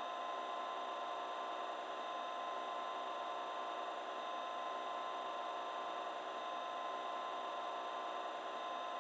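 Model Class 56 diesel locomotive's DCC sound decoder playing the engine at idle through its small slab speaker: a steady hum with no deep low end.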